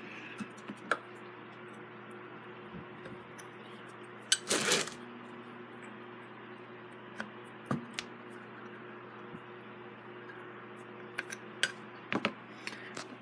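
Scattered metallic clicks and clinks of a 5/16 open-end wrench working a nut on an Emerson fan base's pivot bolt, with the loudest clatter about four seconds in. A steady low hum runs underneath.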